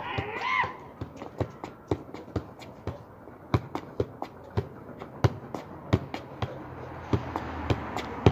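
Football being juggled with the feet and knees: a run of dull, sharp thuds as the ball is struck, roughly two touches a second at an uneven pace.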